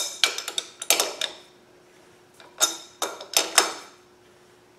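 Adjustable wrenches clinking and clicking against the nut and threaded rod of a homemade harmonic balancer installer as the nut is turned to draw the balancer onto the crankshaft. The clinks come in two spells, one at the start and another about two and a half seconds in.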